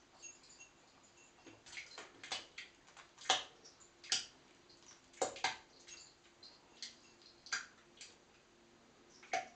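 A kitten perched on a plastic toilet seat and training ring makes irregular small clicks and taps, about a dozen, as its claws and paws shift on the plastic. The loudest clicks come around the middle and near the end.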